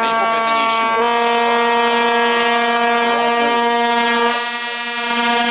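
Air horns of T679 'Sergej' diesel locomotives sounding one long, steady blast, dipping and changing tone about four and a half seconds in.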